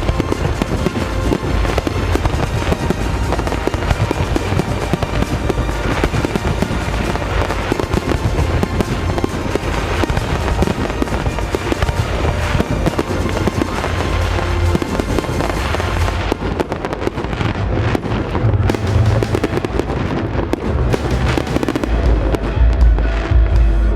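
Fireworks display going off in dense rapid crackling and bangs, with music playing along. The crackling thins out about two-thirds of the way through, leaving a heavier low rumble toward the end.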